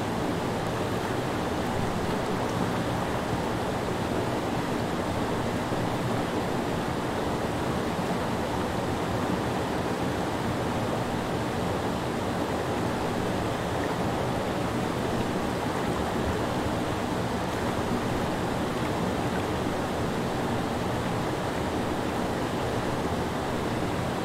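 Creek water cascading in whitewater over a low rock ledge: a steady, unbroken rush of falling and churning water.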